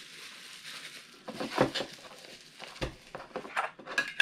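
Thin plastic bag crinkling and rustling in irregular bursts as a small figure is slipped back into it, with a light knock a little before three seconds in.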